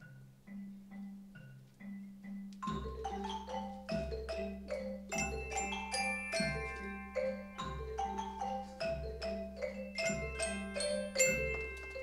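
Mallet percussion ensemble of xylophones and glockenspiels playing a slow original tune. It begins as a soft repeating two-note bass figure; about three seconds in, deep bass notes join on a slow beat, with a fuller melody and long-ringing high bell tones above.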